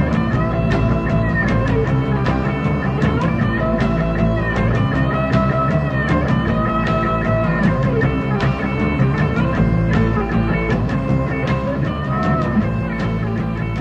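Rock band playing an instrumental stretch of the song, drums keeping a steady beat under sustained lead notes that bend up and down in pitch.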